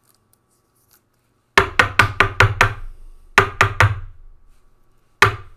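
Rapid knocking on a hard surface: about seven quick knocks, a short pause, four more, then a single knock near the end.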